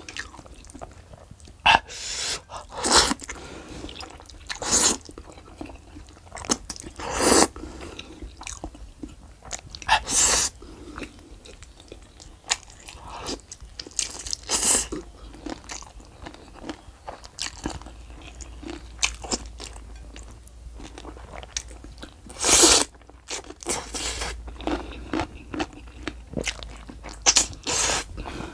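A person eating close to the microphone: noodles slurped in, fried chicken bitten into and chewed, with irregular wet chewing and crunches.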